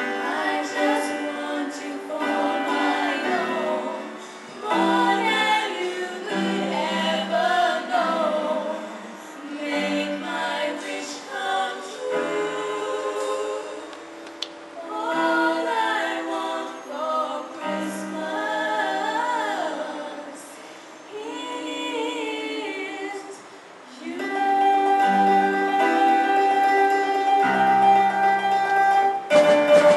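Female vocal trio singing a Christmas song together into microphones over an instrumental accompaniment, ending the phrase on a long held note near the end.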